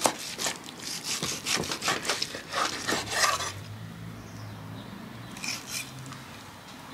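Large knife slicing through a grilled steak's charred crust on a wooden cutting board: a quick run of short cutting strokes for about three and a half seconds, then a pause and two softer strokes near the end.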